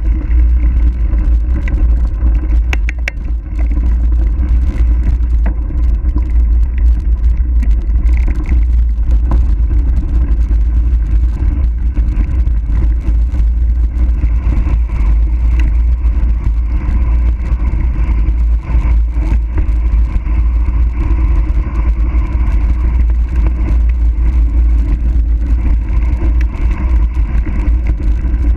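Heavy, steady wind rush on the microphone of a camera riding with a bicycle on a fast downhill, strongest in the deep low end, with a few brief rattles.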